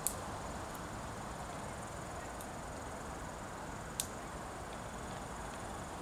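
Steady high-pitched hum of insects over a low, even background rush, with two sharp clicks, one right at the start and one about four seconds in.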